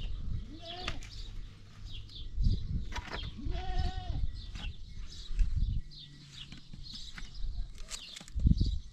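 Goats or sheep bleating: two drawn-out bleats, one about a second in and a longer one near four seconds, each rising and then falling in pitch.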